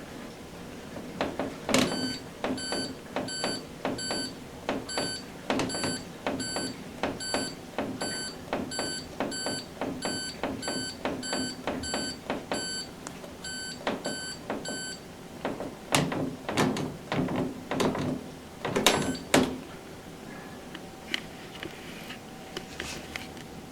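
Candy Smart Inverter washing machine's control panel being operated: a click followed by a short high beep, repeated about every half second for some thirteen seconds. A cluster of louder clicks and knocks without beeps follows.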